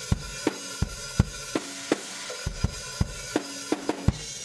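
Drum kit recorded through one mono microphone, played back with a considerable amount of compression at a 4:1 ratio. Bass drum and snare hits come in a steady groove over a continuous cymbal wash.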